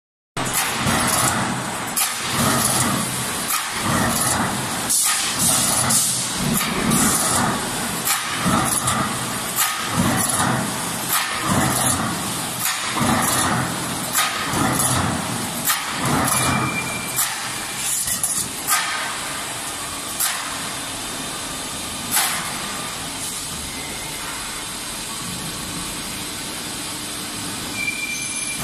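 Automatic hydraulic guillotine shearing line running: a steady machine hum under rapid, irregular metallic clanks and knocks for about the first two-thirds, then a steadier hum with only a few single clanks. A short high beep sounds twice, about 16 seconds in and near the end.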